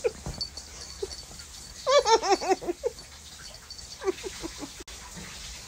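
A woman giggling in two short runs of laughter, about two seconds in and again at four seconds, as a puppy licks her face.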